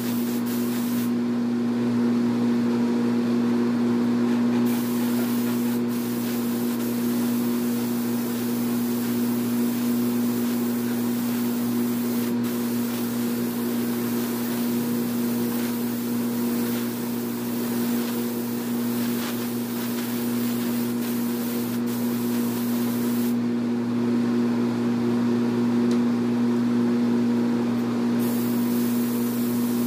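Compressed-air paint spray gun hissing as it sprays, over a steady low machine hum. The hiss stops twice for a few seconds, about a second in and again after about 23 seconds, as the trigger is released.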